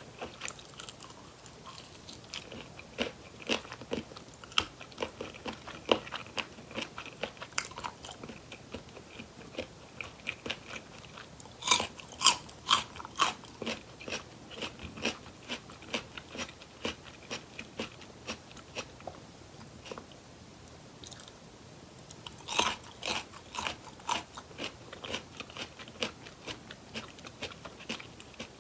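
Close-miked crunching bites and chewing of crispy fried chicken drumsticks, with many small crackles throughout. Two louder runs of crunching bites come about twelve seconds in and again about twenty-two seconds in.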